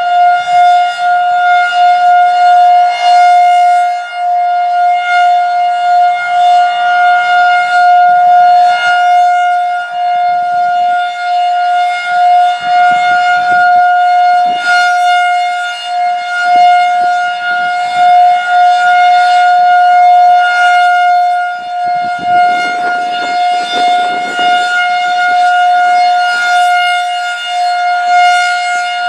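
Federal Signal 2001-DC electromechanical tornado siren sounding its steady alert tone: one held pitch with many overtones, rising and falling in loudness as the slowly rotating horn turns.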